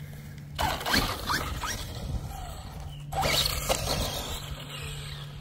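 Traxxas Stampede VXL brushless RC truck run in two bursts, about half a second and three seconds in, its tyres and drivetrain making scratchy, squeaky mechanical noise.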